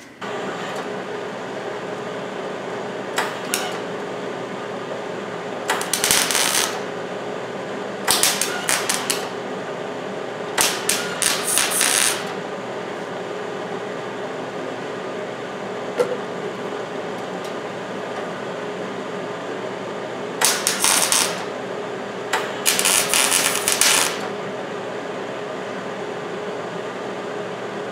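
Wire-feed welder laying tack welds on sheet-metal repair panels: about six short bursts of crackling arc, each lasting up to about a second and a half, with a long pause in the middle. A steady hum runs underneath.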